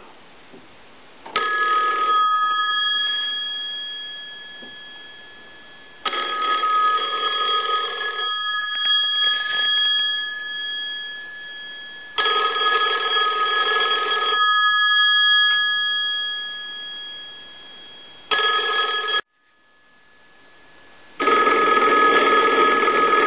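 Single-slot Touchtone payphone ringing on a test call, five rings about six seconds apart, each ring sharp at the start and fading. The fourth ring is cut short. The rings show that the phone's ringer works after the conversion.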